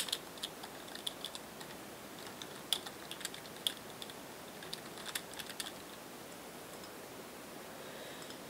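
Typing on a computer keyboard: irregular single keystrokes for the first five or six seconds, then the typing stops.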